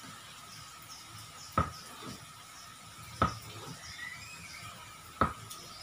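Kitchen knife cutting down through a block of tofu and knocking on a plastic cutting board: three sharp taps, roughly one and a half to two seconds apart.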